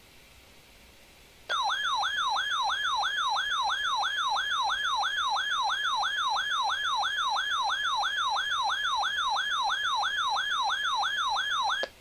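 A weather radio's alert siren going off as a warning is received: a warbling tone that sweeps up and down in pitch about three times a second. It starts suddenly about a second and a half in and cuts off just before the end.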